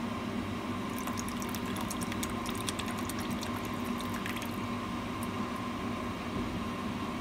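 Vinegar poured from a plastic bottle into a frying pan of water, trickling and splashing for a few seconds before the pour stops, over a steady background hum.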